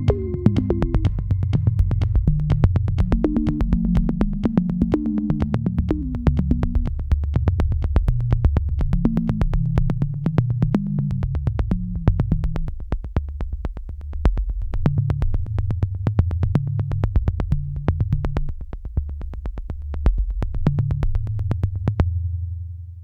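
Electronic synthesizer background music with a steady ticking beat over low, shifting bass notes, fading out near the end.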